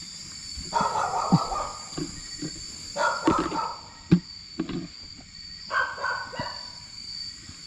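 Three animal calls, each under a second long, about a second, three seconds and six seconds in, over a steady high-pitched drone of night insects. Scattered short knocks sound through it.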